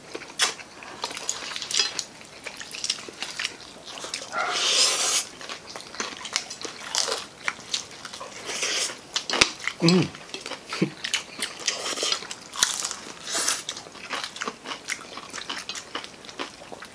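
Close-up eating sounds of people biting and chewing crispy fried chicken: irregular crunches of the crackling breaded skin, with wet chewing in between.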